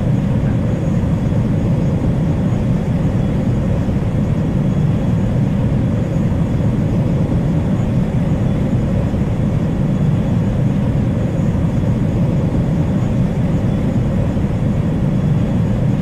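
Jet airliner engines giving a steady low rumble that holds even throughout.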